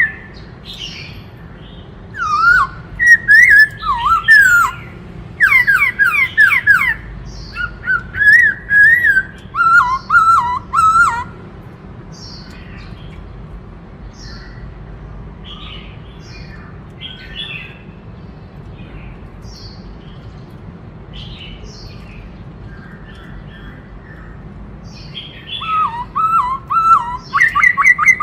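Black-throated laughingthrush singing: loud bursts of whistled, warbling phrases for the first eleven seconds or so, then quieter scattered calls, with the loud song coming back near the end.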